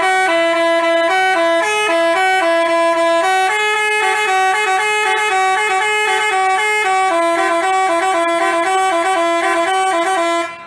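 Basuri telolet bus horn playing a fast tune of short, stepping notes, several horn tones sounding together, and cutting off abruptly near the end.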